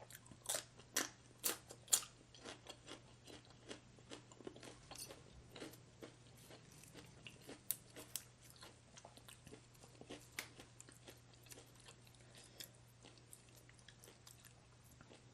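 Close-up eating of crisp food: chewing and crunching, with about four loud crunches in the first two seconds, then softer, irregular chewing clicks.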